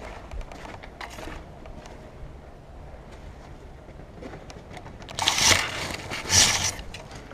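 Scraping and rustling from a player moving with gear, with scattered small clicks, and two louder scrapes about five and six seconds in.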